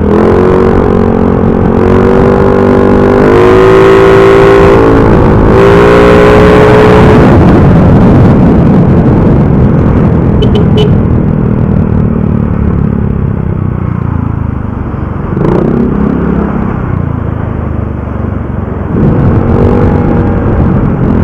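Motorcycle fitted with a loud aftermarket Apido 'chicken pipe' exhaust accelerating, its note climbing in pitch with a brief break about five seconds in before climbing again. It then settles into a long stretch of mostly rushing wind and road noise, and the exhaust note comes back strongly near the end.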